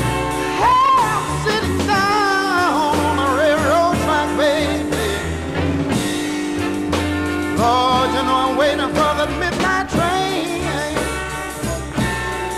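Blues band playing between sung lines: steady bass and a long held chord under a lead melody that bends and wavers in pitch, in two long phrases.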